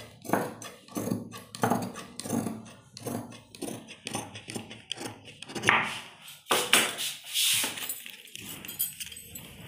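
Large tailor's scissors snipping through folded cotton cloth, a run of sharp cuts along a curved line, followed by rustling as the cut piece of cloth is moved.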